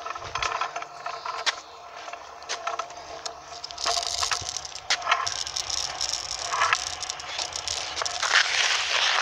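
Small wheels rolling over rough tarmac, a continuous rattle with many small clicks. It grows louder about four seconds in and stops suddenly at the end.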